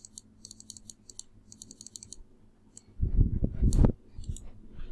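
Quick clicking of a computer keyboard and mouse in short clusters for about two seconds. About three seconds in comes a louder, deeper noise lasting about a second.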